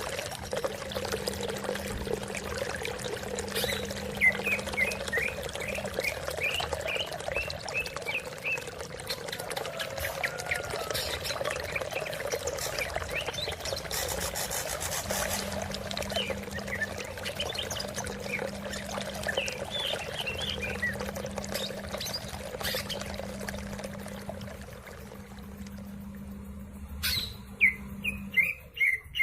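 Greater green leafbird (cucak ijo) chirping in quick series of short notes over steadily running water, with a louder run of chirps near the end.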